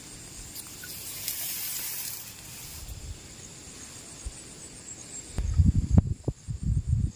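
Outdoor ambience with a faint, steady insect trill and a brief hissing rush about a second in. In the last two seconds come loud, irregular low rumbles and knocks.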